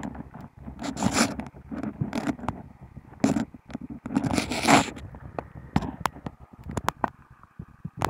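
Irregular scrapes and rustles, with scattered sharp clicks, from a gloved hand handling a snook pressed against a fish-measuring board.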